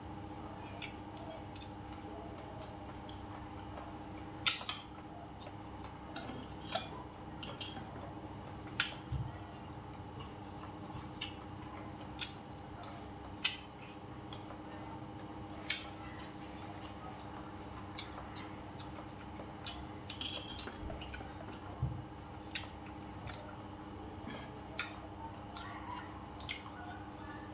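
Metal spoon and chopsticks clinking against ceramic bowls and a plate in scattered light clicks every second or two, the loudest about four and a half seconds in, over a steady faint hum.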